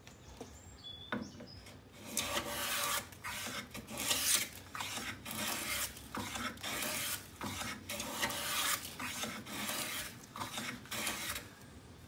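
Lie-Nielsen No. 62 low angle jack plane, its adjustable mouth just closed up a little, taking a quick run of about a dozen short strokes along a board, the blade rasping as it lifts shavings. The strokes start about two seconds in.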